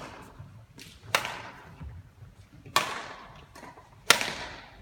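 Badminton rackets striking a shuttlecock in a rally: three sharp hits about a second and a half apart, each ringing briefly in the sports hall's echo. The last, an overhead stroke, is the loudest.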